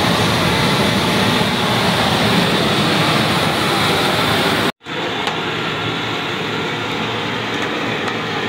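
Steady rushing noise of big pans boiling hard over gas burners. It cuts out for a moment about five seconds in, then goes on a little quieter and duller.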